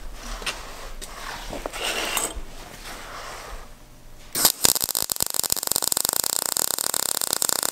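MIG welding arc striking about four and a half seconds in after a quieter stretch, then crackling rapidly and evenly as a bead is run on thin 16-gauge steel square tubing. The welder is set a voltage step higher with more wire speed, run hotter for deeper penetration on the thin tube.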